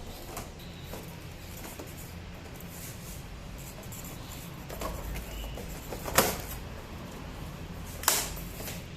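Handling of plastic scooter body panels: faint clicks and taps, then two sharp plastic knocks about six and eight seconds in.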